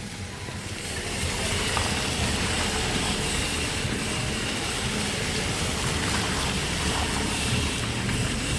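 Steady street ambience: an even rushing noise with a low rumble underneath.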